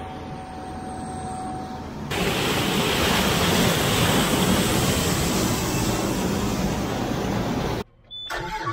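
John Deere 9770 STS combine running as it harvests corn: a steady machine hum that jumps about two seconds in to a loud, even rush of engine and crop-handling noise, breaking off abruptly near the end.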